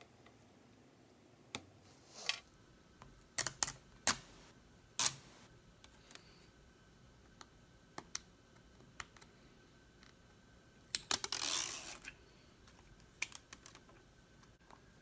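Scattered sharp clicks and light taps of small tools and parts being handled on an iPad 2 during reassembly, with a short rustling scrape about eleven seconds in.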